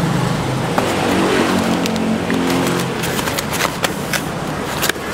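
A motor vehicle's engine hums in the street. From about three seconds in, a run of quick, sharp taps follows as a knife chops through the roti on the counter.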